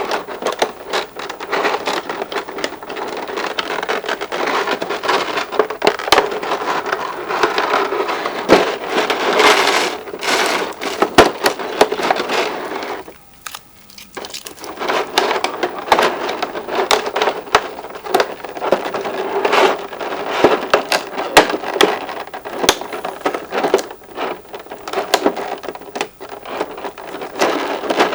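Toy packaging being handled and opened: continuous crinkling and rustling of plastic and cardboard with many small sharp clicks. The handling stops for about a second about halfway through, then resumes.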